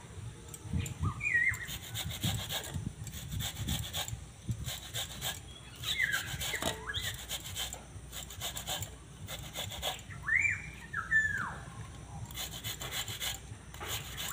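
Wax apples (jamrul) being grated on a stainless steel hand grater, the fruit rasping against the metal teeth in repeated quick strokes.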